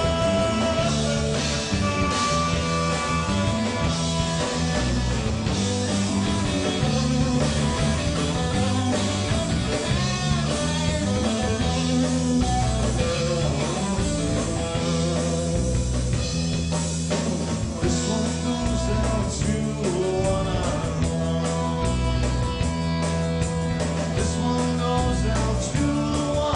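Rock band playing live, with a stepping bass line, electric guitar and drums, and cymbals busier in the last part.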